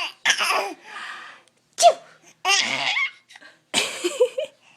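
Laughter in several short bursts.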